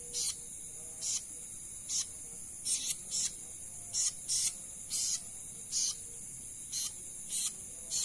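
Night insects calling: a steady high-pitched trill, with a louder short chirp repeating roughly once a second.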